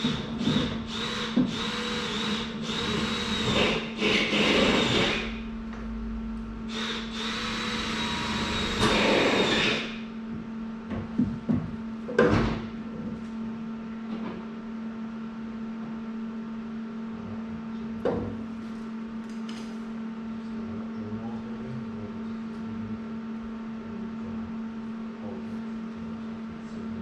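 A power tool with a steady high whine runs in two bursts, about five seconds and then about three seconds. A few separate knocks follow, over a steady low hum.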